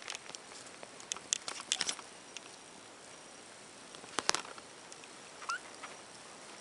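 Scattered soft clicks and rustles of a tiny kitten being handled and stroked on bedding, busiest in the first two seconds, with one sharp click about four seconds in and a brief faint squeak about five and a half seconds in.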